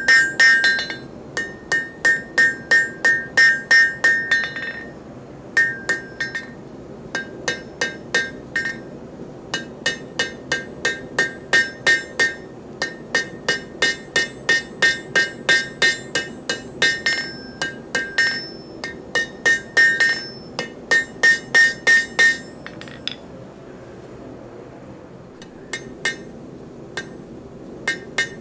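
Hand hammer striking red-hot Damascus steel held in tongs on an anvil's horn, about three blows a second, each with a bright anvil ring. The blows come in runs broken by short pauses, the longest about two-thirds of the way through.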